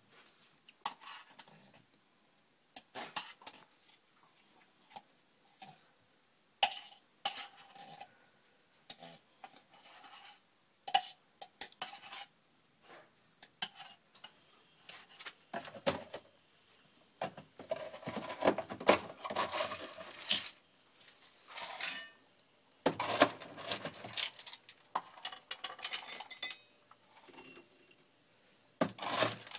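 Irregular light clicks, taps and clinks with some rustling, coming in scattered single strokes and thicker clusters, with a loud flurry near the end.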